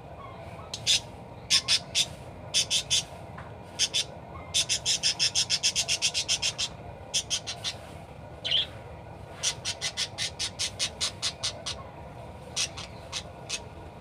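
Budgerigar calling in runs of short, sharp, high-pitched chirps, several a second, with brief pauses between runs and a longer rapid run about five seconds in.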